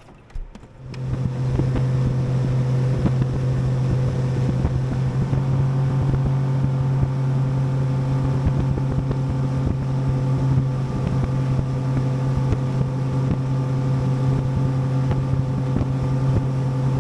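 Bass boat's outboard motor comes in about a second in and then runs steadily under way, a constant low drone, with wind buffeting the microphone. A single knock comes just before the engine sound starts.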